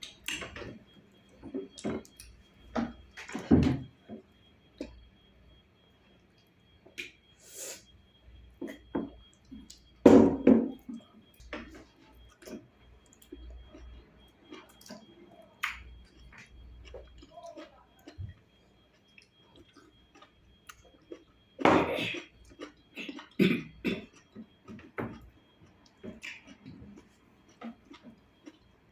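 Close-range eating sounds of fufu with ogbono soup: wet chewing, lip smacks and scattered small clicks, with a few louder short bursts.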